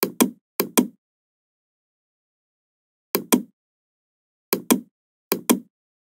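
Computer mouse button clicking, in five quick pairs of sharp clicks: two pairs close together at the start, then single pairs after about three seconds, four and a half seconds and five and a half seconds.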